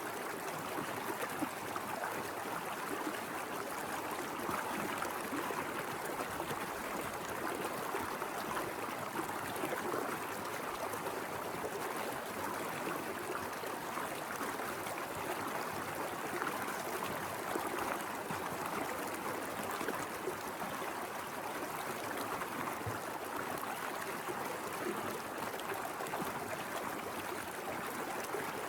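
Mountain river flowing over rocks: a steady rush of water with trickling and gurgling.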